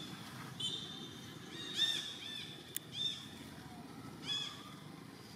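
A series of short, high-pitched chirping animal calls, each rising and falling, coming about once a second in small groups. A faint steady high tone sits behind them, and there is one sharp click about midway.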